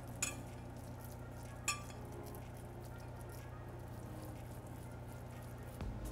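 Two light clinks of glass, about a second and a half apart, each with a short ring, from a glass baking dish as food is set into it, over a steady low hum.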